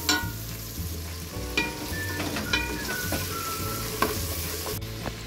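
Onions and garlic sizzling in hot oil in a metal pressure cooker while a wooden spoon stirs them, the spoon knocking sharply against the pot four times.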